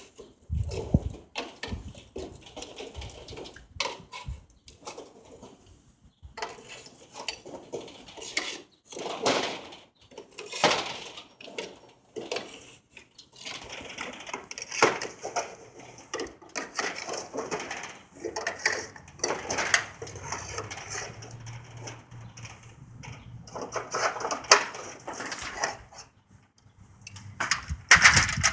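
Irregular metallic clinks and knocks of hand tools on door spring hardware, coming in scattered clusters with short quiet gaps.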